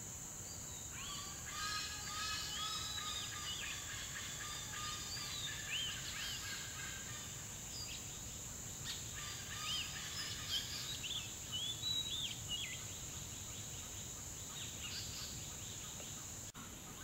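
Several birds chirping and whistling in quick, overlapping calls over a steady high-pitched insect drone. The chirping is busiest in the first dozen seconds, then thins out.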